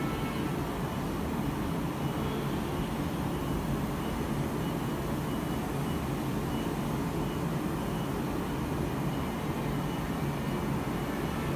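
Woodmaster automatic CNC spray-painting machine running while its spray guns coat wooden cabinet door frames: a steady, even mechanical drone, heaviest in the low range.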